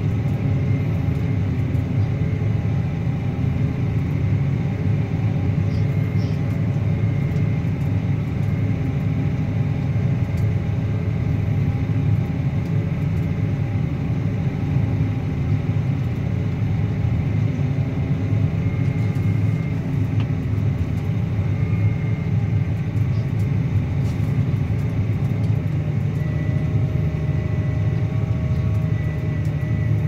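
Claas Axion 850 tractor's six-cylinder diesel engine running steadily under load, pulling a Kuhn Varimaster reversible plough through the soil.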